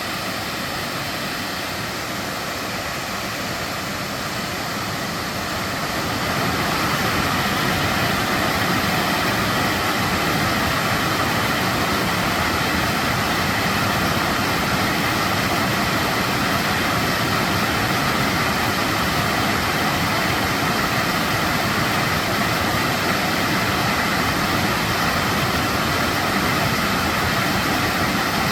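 Steady rushing of a waterfall, growing louder about six seconds in and then holding steady.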